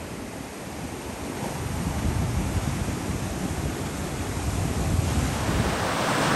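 Ocean surf washing onto the beach, with wind buffeting the microphone; it swells gradually louder over the last few seconds.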